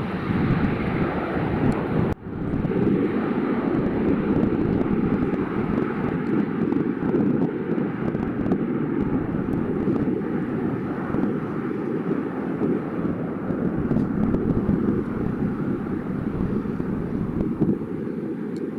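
Twin GE CF6-80C2 turbofans of a Boeing 767-300 freighter at takeoff thrust during the climb-out: a steady, loud deep jet rumble with a rushing roar, briefly dropping out about two seconds in.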